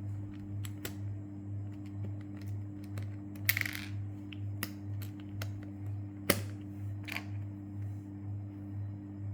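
Small plastic 4x4 Rubik's cube pieces clicking and tapping as they are fitted into place, with two sharper clacks, over quiet background music with a steady low drone.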